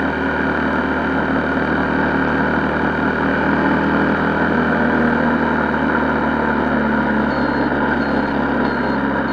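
Honda XR125L motorcycle's single-cylinder engine running steadily on the move. Near the end a short high beep starts repeating about twice a second.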